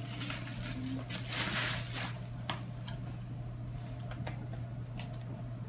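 Clear plastic packaging bag crinkling and rustling as a folding plastic toilet-seat reducer is pulled out of it, followed by a few light plastic clicks as the folded seat is handled. A steady low hum runs underneath.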